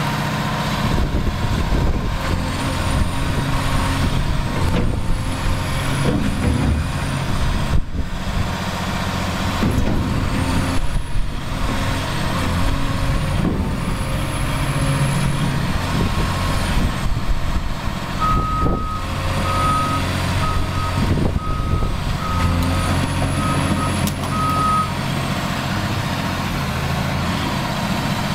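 Caterpillar 336EL track excavator's diesel engine running steadily as the boom and bucket are raised and lowered. In the second half a reversing alarm beeps on and off in uneven pulses.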